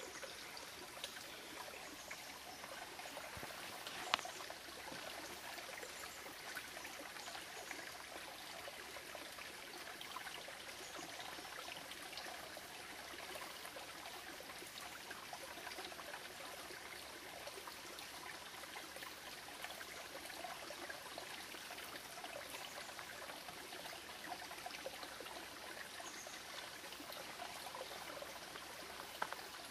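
Shallow, rocky creek trickling over stones: a low, steady babble of running water with small ticks in it, and a sharper tick about four seconds in and again near the end.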